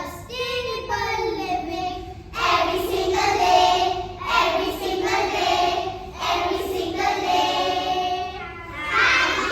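Young children singing a song, in a run of held notes grouped into short phrases.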